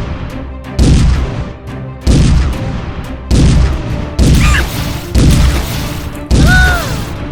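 Six heavy booming thuds about once a second, each dying away, over background music, with a short rising-and-falling whistling tone near the end.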